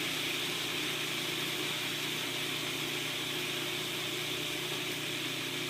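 Cuisinart food processor running steadily, its blade grinding soaked almonds down to a fine meal.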